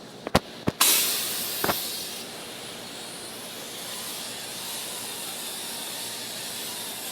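Three or four sharp clicks, then a softwash spray wand starts spraying at low pressure: a sudden loud hiss that eases after a couple of seconds into a steady spray.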